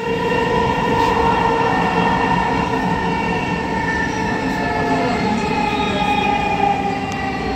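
Dhaka Metro Rail electric train heard from inside the car while running on the elevated track. There is a steady rumble and a chord of whining tones from the electric traction drive, which drops a little in pitch in the second half as the train slows for a station.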